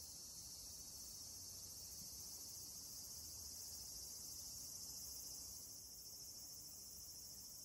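Faint, steady, high-pitched chorus of insects, such as crickets, shrilling without a break.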